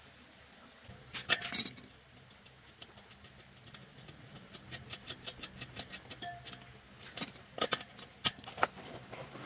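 Metal tools clinking sharply against each other and the wheel about a second and a half in, followed by a long run of small irregular clicks and rubbing as a motorcycle inner tube is worked out from between the tyre and the spoked rim.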